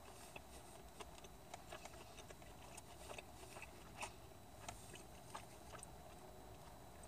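Near silence with faint, scattered mouth clicks and soft chewing: a person quietly eating chicken nuggets.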